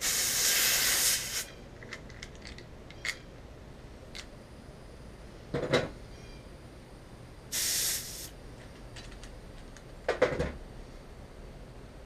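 Pressurised refrigerant hissing out of a charging hose fitting in two short bursts: one lasting about a second at the start, a briefer one about two-thirds of the way in. Small clicks and two heavier knocks from the fittings and hose being handled come in between.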